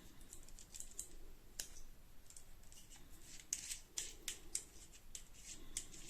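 Small plastic parts and packaging being handled: a quiet, irregular run of light clicks and crinkles, getting busier about halfway through.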